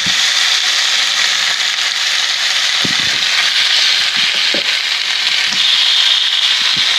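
Sheepshead fillets sizzling in a hot pan of olive oil: a steady loud hiss with scattered small pops and crackles.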